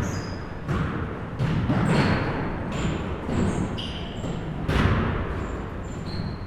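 A basketball bouncing on a gym floor: several irregularly spaced thuds, the loudest about two seconds in and near five seconds in.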